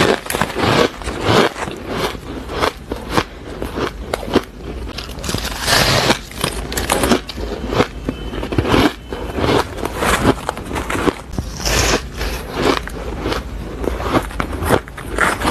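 Close-miked biting and chewing of crumbly, fluffy frozen ice: dense, irregular crunching and crackling throughout.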